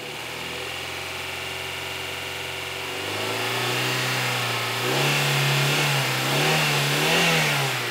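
Fifth-generation 1999 Honda Prelude's H22 DOHC VTEC four-cylinder engine running smoothly. It idles steadily, then is revved up about three seconds in, held higher with a few small blips of the throttle, and eases back down near the end.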